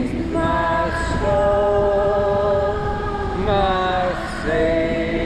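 A voice singing a slow tune in long held notes, each about a second, stepping from pitch to pitch with a short downward slide near the end. A steady low rushing noise runs underneath.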